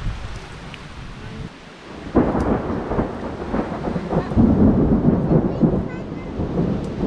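Thunder: a sudden loud clap about two seconds in that rolls on, swelling and fading in uneven surges for several seconds.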